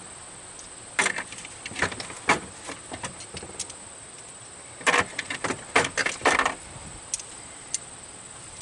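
Steel sockets clinking against each other and against the bolt as sockets from a socket set are picked out and tried for size on a battery terminal bolt, in two bursts of light metallic clicks with a few single ticks near the end.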